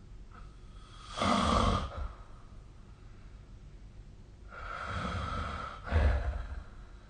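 A sleeping person snoring: a loud snore about a second in, then a longer, softer breath that ends in a second loud snort near the end.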